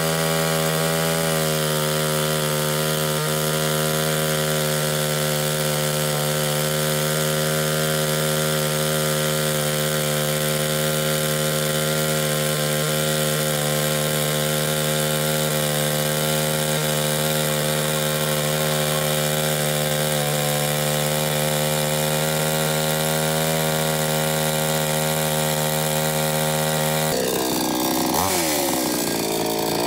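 Salem Master 18-inch 58cc two-stroke chainsaw running steadily at full throttle under load, ripping lengthwise through a cedar beam. About 27 seconds in it comes out of the cut and the engine speed drops and swings up and down.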